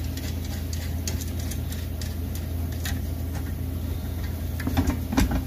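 Small clicks and taps of nuts, bolts and a bracket being handled and threaded finger-tight onto a mower's discharge shield, over a steady low hum. A few louder knocks come near the end.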